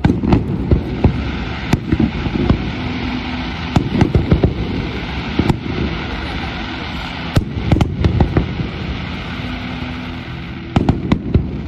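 Firework display: aerial shells bursting in quick runs of sharp bangs, a cluster every three to four seconds, over steady background noise.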